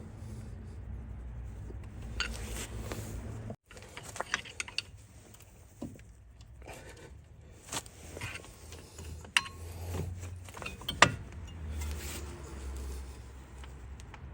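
Scattered metallic clicks, clinks and scrapes of a flat screwdriver levering between brake disc and pad, pushing the caliper piston back.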